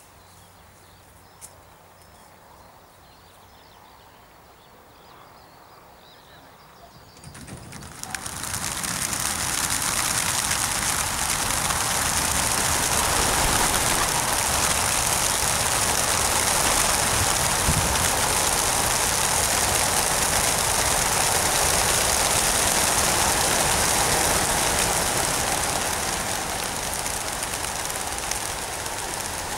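A huge flock of homing pigeons bursting out of a transport truck's crates all at once. Their wings make a sudden loud, dense rush, like heavy rain, that starts about seven to eight seconds in and holds steady, easing a little near the end.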